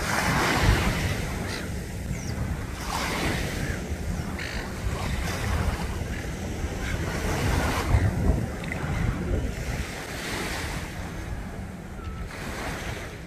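Small harbour waves washing up and receding on a sandy beach, swelling in surges every few seconds, with wind rumbling on the microphone.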